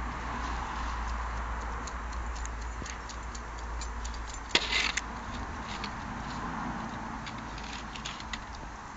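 A beagle moving about with a toy on concrete paving makes scattered light clicks and taps. A brief louder clatter comes about halfway through.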